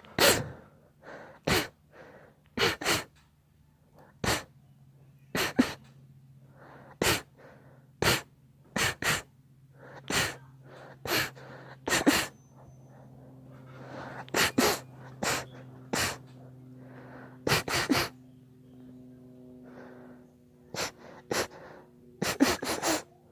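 Sneezing over and over: about two dozen short, sharp sneezes, several coming in quick pairs or triples, with gasping in-breaths between them. A faint steady hum runs underneath.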